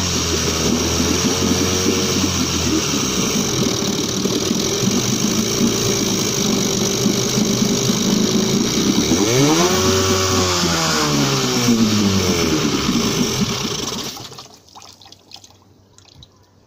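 1977 Suzuki DT9.9 two-cylinder two-stroke outboard running at a fast idle, revving up and back down about ten seconds in, then dying abruptly near the end. It is a deliberate stall: carb cleaner is sprayed into the running engine to soak the cylinders and loosen carbon.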